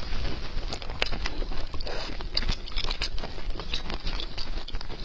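Close-miked chewing of saucy red-braised beef bone marrow: wet mouth sounds with many short irregular clicks and smacks.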